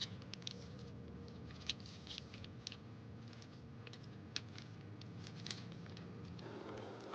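Light, irregular clicks and taps of small objects being handled, a few every second, over a low steady hum that drops away near the end.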